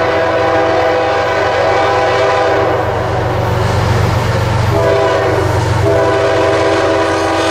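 Diesel freight locomotive's air horn sounding a held chord of several tones as the train approaches, with the engine rumbling underneath. The horn breaks off for about a second near five seconds in, then sounds again.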